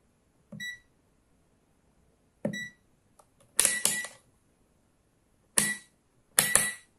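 Kaiweets HT118A digital multimeter's rotary function dial being clicked from setting to setting. The meter gives a short high beep with each click, about six times at uneven intervals, the last two close together near the end.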